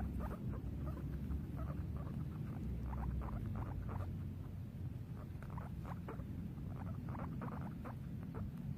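Guinea pig squeaking: many short squeaks in quick runs, over a low steady rumble.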